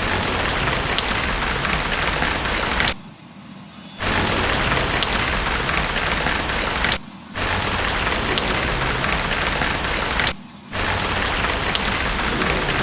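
Heavy rain, a dense steady hiss with a constant low rumble of thunder beneath it and scattered crackles. It cuts out abruptly for about a second near three seconds in, and for shorter moments about seven and ten seconds in.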